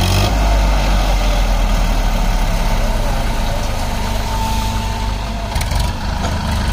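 Diesel engines idling steadily from a Massey Ferguson tractor and a SANY excavator working close together.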